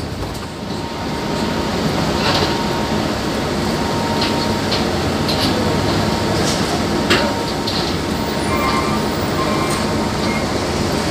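Steady machinery rumble from the moored livestock ship, with a few sharp knocks scattered through it.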